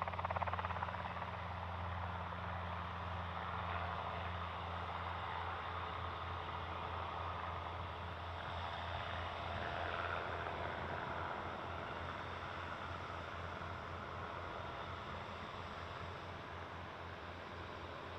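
Helicopter running: a steady low rotor and engine drone with a broad hiss over it, slowly getting quieter over the last few seconds.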